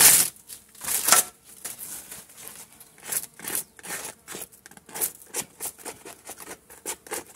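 Weathered newspaper and a plastic bottle crinkling and tearing in quick, irregular crackles as the rotted paper wrapping is worked off a bottle bait hive.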